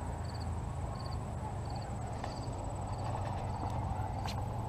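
Cricket chirping, short chirps repeating at a steady pace about every two-thirds of a second, over a steady low rumble. One sharp click comes near the end.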